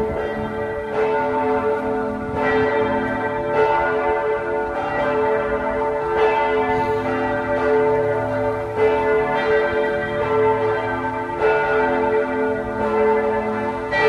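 Bells of the Serbian Orthodox Church of Saint Sava pealing: several bells are struck over and over at an uneven pace, with a fresh stroke about every second or so, and their tones ring on and overlap.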